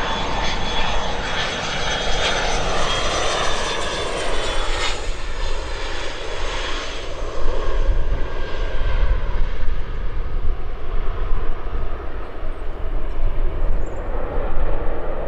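IAI Gulfstream G150 business jet landing, its twin turbofan engines giving a loud whine with several high steady tones over a rushing hiss. The whine fades after about six or seven seconds, leaving a low rumble.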